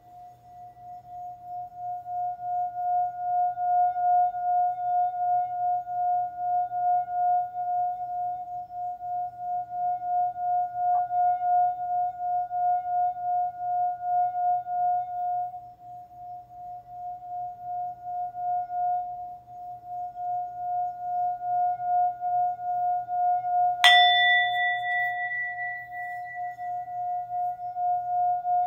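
Singing bowl ringing with one steady tone and a fainter higher overtone, pulsing in loudness a few times a second. About 24 seconds in it is struck sharply, adding brighter, higher ringing tones that fade over a couple of seconds.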